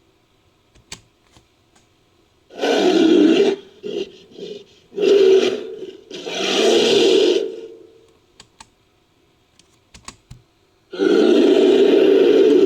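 Made-up Bigfoot calls built from edited animal and monster roars: four loud roars with a couple of short grunts between them, separated by pauses.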